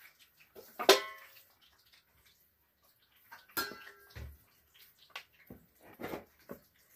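A sharp clink about a second in, then a rolling pin working dough on a round board in short, uneven strokes, with knocks of the pin against the board.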